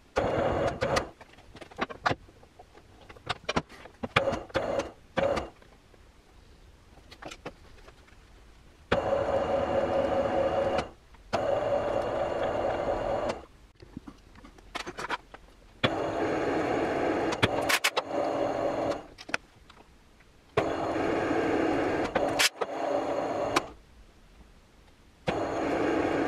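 Weiler LZ280 metal lathe running in repeated short passes while single-point cutting an internal 3 mm pitch metric thread in a nut, with its change-gear train engaged. There are about five steady runs of two to three seconds each, separated by brief pauses filled with clicks and knocks.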